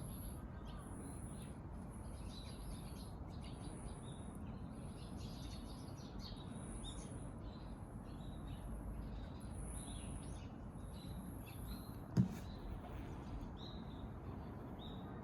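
Birds chirping in short calls over a steady low outdoor rumble, with a high-pitched pulsing note repeating a little more than once a second. A single sharp knock about twelve seconds in.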